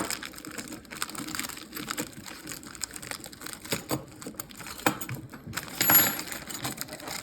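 Small metal tools and parts being handled: scattered light clicks and rattles, with a louder metallic clink about six seconds in.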